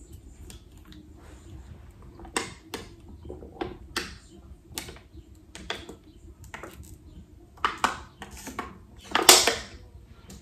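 Someone drinking water: a string of small clicks and knocks from handling the drinking vessel and swallowing, about ten over several seconds, with the loudest near the end.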